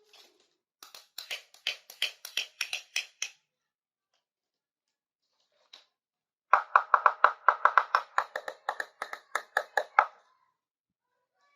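Two runs of quick, light tapping on small hard miniature kitchenware, several taps a second; the second run is louder and faster, each tap ringing at a steady pitch.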